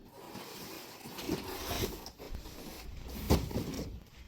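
Cardboard being handled: the sheets and empty packing box scraping and rustling as they are moved, with one sharp thump a little over three seconds in.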